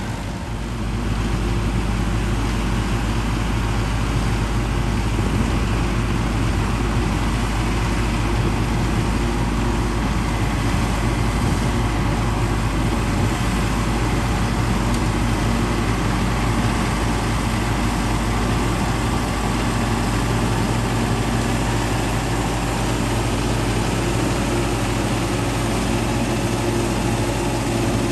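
White 160 tractor running under load, driving a New Holland FP230 pull-type forage harvester that is chopping standing corn and blowing silage into a Gehl forage wagon: a steady, loud mix of engine hum and cutterhead and blower noise. It grows louder about a second in, then holds steady.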